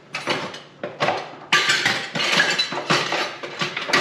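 Metal kitchen utensils clinking and scraping, with a busy stretch of clatter in the middle.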